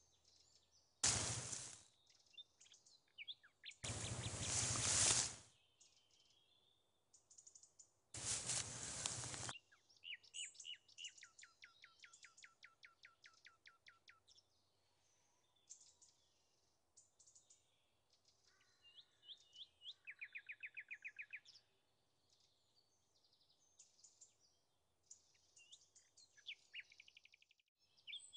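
Wild birds calling and singing, including two trills of quickly repeated notes at about four a second. In the first ten seconds, three loud bursts of rushing noise, each a second or so long, stand out above the birdsong.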